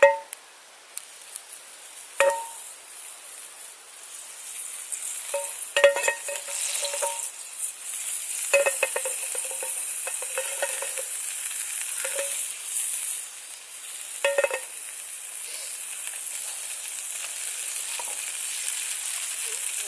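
Metal cooking pan clinking and ringing as it is set on and shifted over a Bushbox XL wood-burning stove, several separate clinks, over a steady sizzling hiss from the stove that grows louder a few seconds in.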